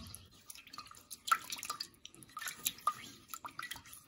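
Silicone spatula stirring a thin, juice-based sweet and sour sauce in a pot: irregular liquid sloshes and drippy splashes.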